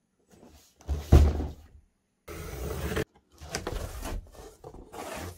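Cardboard box being handled and its flaps pulled open: a heavy thump about a second in, then scraping and rustling of cardboard in several short spells.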